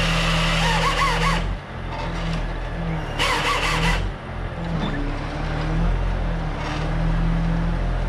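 Crane-mounted hydraulic saw head cutting through a tree trunk in two short bursts, with a wavering squeal. The first burst stops about a second and a half in, and the second runs for about a second from three seconds in. Underneath, the truck's engine drives the crane with a steady drone.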